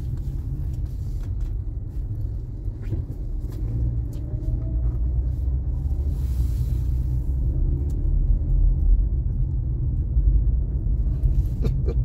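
Steady low rumble of a car on the move, with a brief hiss about six seconds in.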